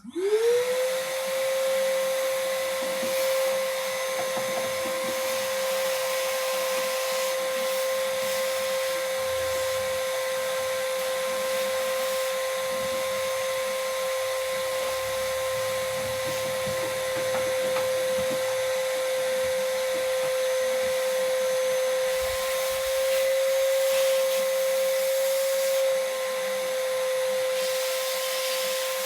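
High-speed electric motor switched on, spinning up within half a second to a steady high whine over a rushing hiss, then running on at an even speed.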